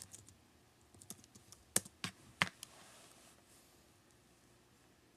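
Computer keyboard being typed on while a login password is entered: a few light key taps, then three sharp, louder key strikes close together about two seconds in.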